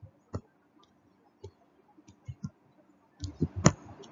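Scattered clicks from a computer mouse: a few single clicks spaced well apart, then a quicker cluster of louder clicks near the end.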